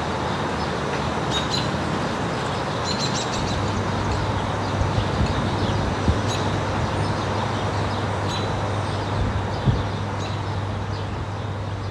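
Outdoor ambience: a steady rush of background noise with small birds chirping now and then. A low steady hum joins about three and a half seconds in.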